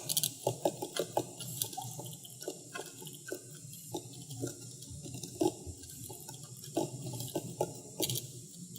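Sparse, irregular clicks of a computer mouse and keyboard, roughly one a second, over a faint steady hum.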